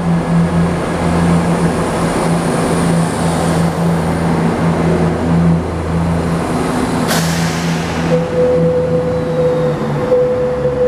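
ScotRail Class 170 Turbostar diesel multiple unit running along the platform at low speed, its underfloor diesel engines giving a steady low hum under the rolling noise of the carriages. A steady high tone joins about eight seconds in.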